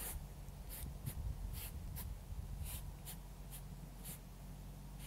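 Short scratchy strokes across a painting canvas, one or two a second, as paint is pulled and wiped on the surface.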